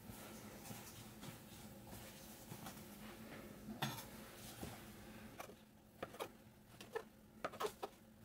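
Soft rubbing of hands rolling a log of cottage-cheese dough on a countertop, then a large kitchen knife cutting the dough into chunks, its blade knocking sharply on the countertop about six times in the last two seconds. One louder knock comes about four seconds in.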